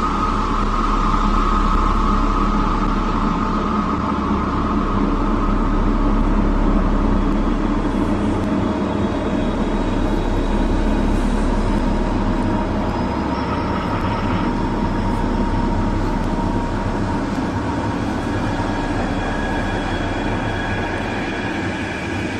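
A steady low rumbling drone under a continuous hiss, with a few faint held tones drifting above it.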